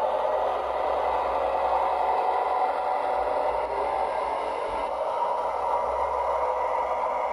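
O gauge model diesel locomotive running slowly along the track: a steady whir with a light rattle of wheels on the rails.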